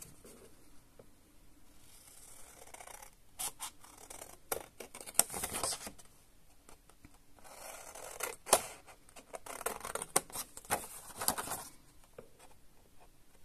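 Scissors cutting into cardstock: a run of crisp snips and short scraping blade strokes, coming in several bursts with pauses between.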